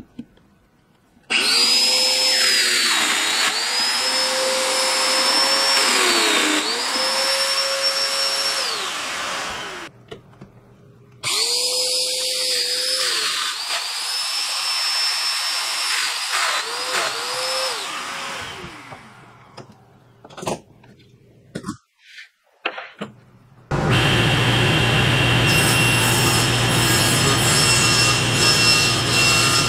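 Festool Domino joiner running in two bursts, its motor whine dipping in pitch each time it plunges a mortise into red oak boards, with quiet clicks between bursts. About 24 s in, a table saw runs steadily, ripping a red oak board.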